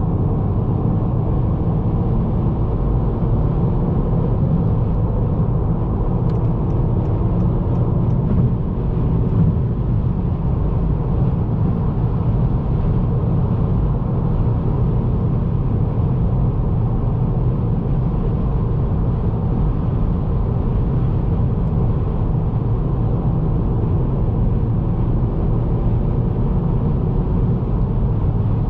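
Steady road and engine noise inside the cabin of a 2022 Honda Accord Sport 1.5T cruising at highway speed: tyre and wind rumble with the turbocharged 1.5-litre four-cylinder humming underneath. A short run of faint ticks comes about six seconds in.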